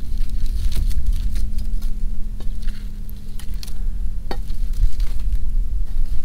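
Wood campfire crackling with scattered sharp pops, and food sizzling on a grill grate set over the flames. A heavy low rumble and a steady low hum run underneath.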